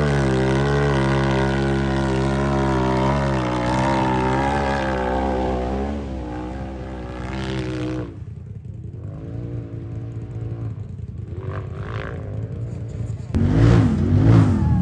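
Off-road racing UTV engine revving under load, its pitch wavering up and down as the throttle is worked, then dropping away about eight seconds in. Near the end an engine comes in louder again, its revs swinging quickly up and down.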